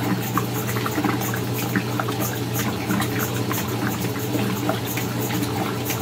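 Brastemp top-loading washing machine agitating a load: water sloshes and splashes around the agitator over a steady motor hum.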